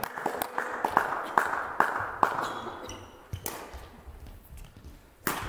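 Sparse clapping from a few spectators in a sports hall, single claps about every half second that die away after about two seconds. A single sharp knock comes near the end.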